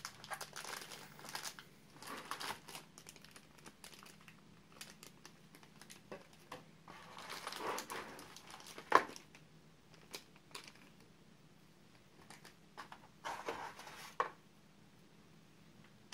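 Thin plastic packaging bags crinkling as the clipper attachments are handled and unpacked. The crinkling comes in several bursts, with a sharp tap about nine seconds in, the loudest sound.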